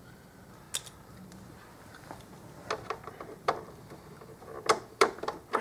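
Scattered sharp clicks and taps of a socket and ratchet being fitted and worked on a dash screw, irregular and coming more often near the end, with no sign of the screw turning out, which leads to the suspicion that it is stripped.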